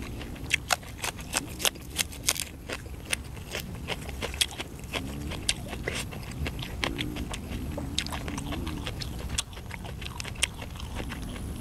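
Close-up chewing of a crisp raw green onion stalk: wet crunches and clicks, densest in the first three seconds, then more scattered.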